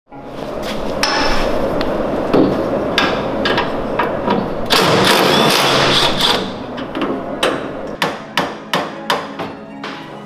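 Hammer blows on the steel steering column of a go-kart: repeated sharp metal strikes, settling in the last few seconds into an even run of about two or three blows a second, with background music under them.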